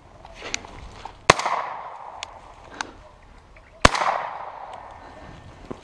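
Two shotgun shots about two and a half seconds apart, each a sharp crack followed by a ringing tail that fades over about a second.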